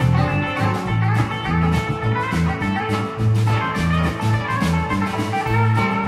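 Live blues band playing an instrumental passage: electric guitars over a bass line and drum kit.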